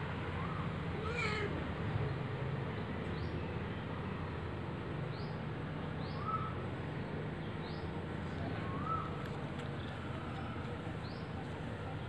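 Kitten mewing: a louder mew about a second in, then short high mews every few seconds, over a steady low hum.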